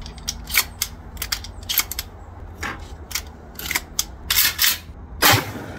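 12-gauge shells being pushed one after another into a pump shotgun's tube magazine: a string of sharp metallic clicks and clacks, with the loudest clack about five seconds in.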